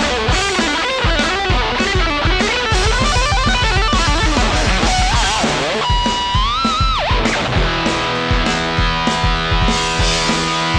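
Electric guitar through a Suhr Riot high-gain distortion pedal playing a lead line with string bends and vibrato over a steady drum beat. About six seconds in it holds a bent note with wide vibrato that drops away, and then sustained distorted chords ring.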